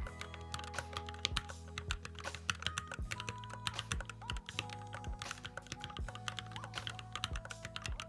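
Fast, continuous touch-typing on a Keychron Q11 split mechanical keyboard: a dense run of key clacks with no breaks.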